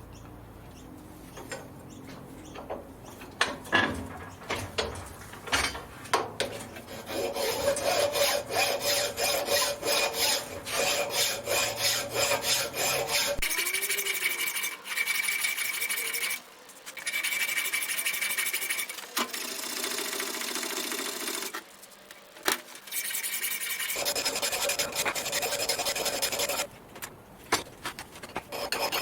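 Hand file rasping back and forth across the edge of a stack of 3 mm steel plates, bolted together to make a 12 mm block. The strokes come one after another in a steady rhythm, starting a few seconds in, with a few short breaks.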